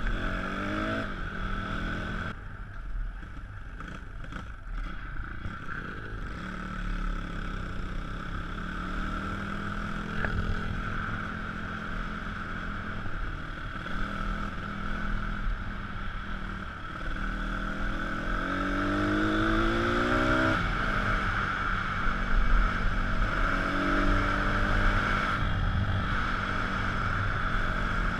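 Small pit bike engine running under way, its pitch rising as it revs up near the start, again for a couple of seconds about two-thirds of the way in, and briefly near the end, dropping back between the climbs.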